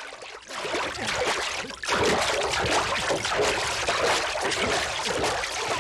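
Water rushing and splashing around a bamboo raft. It rises about half a second in and gets much louder about two seconds in, then keeps on steadily.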